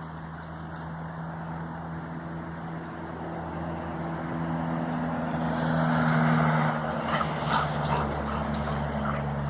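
An engine running steadily, growing louder to a peak about six seconds in and then easing off.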